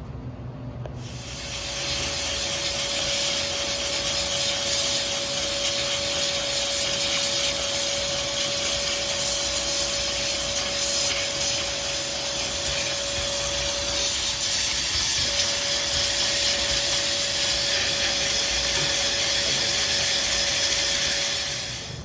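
A steady hiss of spray, starting about a second in and lasting about twenty seconds, with a constant tone beneath it that briefly drops out about two-thirds of the way through. This is coil cleaner being sprayed onto the grease-clogged evaporator coil of a Mitsubishi ductless mini-split.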